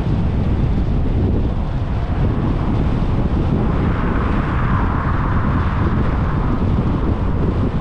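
Wind rushing over a camera mounted on a moving car, a steady loud low rumble of wind and road noise. A hissing swell of something passing rises about three and a half seconds in and fades by about six and a half seconds.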